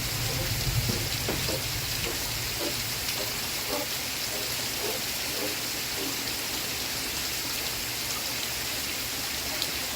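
Steady rain falling: a dense, even hiss of raindrops.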